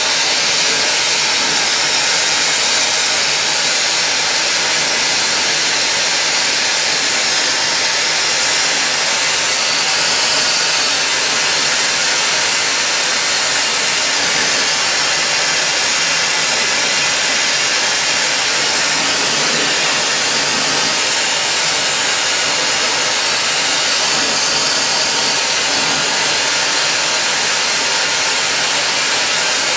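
A glassworking hand torch's flame hissing in a steady, unbroken rush as it heats the glass.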